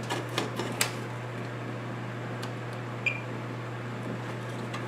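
Steady low electrical hum, with a few light clicks in the first second and one short high beep about three seconds in.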